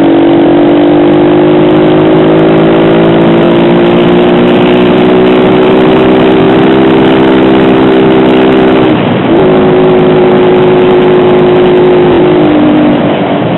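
Honda CG 125 Titan's single-cylinder four-stroke engine pulling under way, its pitch rising slowly, dipping briefly about nine seconds in, then falling near the end as the throttle eases off. A steady rush of wind runs underneath.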